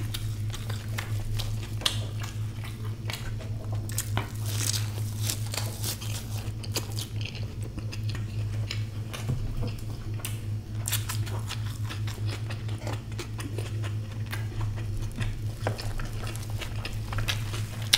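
Close-miked chewing and wet mouth clicks of a person eating egg omelette by hand, with a steady low hum underneath.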